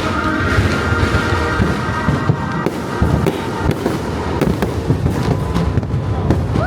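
Fireworks going off in a dense, irregular run of bangs over the show's music soundtrack.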